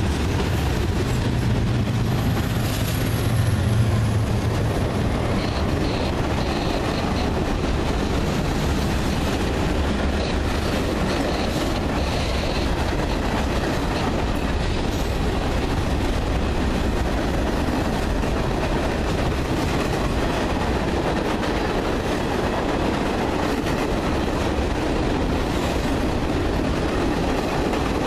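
Freight cars rolling past close by: a steady rumble of steel wheels on rail with rhythmic clickety-clack over the rail joints. A deeper rumble swells in the first few seconds, and brief faint high squeals come now and then.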